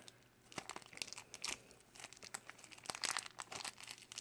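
Plastic Shopkins blind bag crinkling in irregular crackles as it is handled and pulled at to tear it open.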